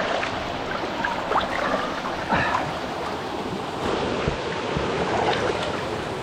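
Water sloshing and splashing around a person wading chest-deep through a creek pool, over the steady rush of flowing water.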